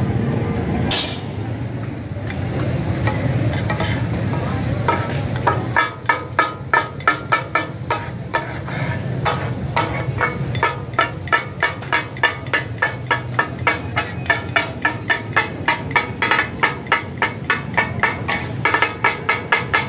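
Two steel spatulas striking a large iron griddle in a fast, even rhythm, about four or five clacks a second, chopping and tossing meat for katakat (taka-tak) over the sizzle of frying. The clacking starts about six seconds in; before that only the frying sizzle is heard.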